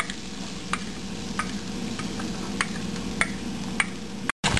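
Chopped onion sizzling in hot oil in a pan as it is stirred, with light clicks of the spatula against the pan every half second or so. The sound cuts out for a moment near the end.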